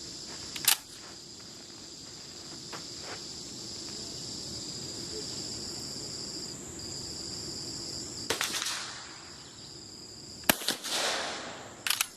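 Steyr-Mannlicher M1888 straight-pull rifle firing cast-bullet 8x50R rounds over a steady chirring of crickets: two sharp cracks about two seconds apart near the end, the second the loudest and trailing off in an echo. Quick metallic clicks of the straight-pull bolt being worked follow it.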